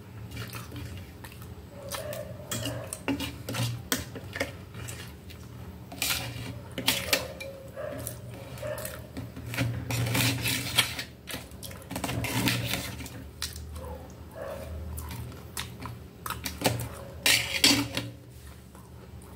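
A metal fork and knife clicking and scraping against a metal serving tray while cutting up breaded chicken, in irregular sharp clinks and short scrapes.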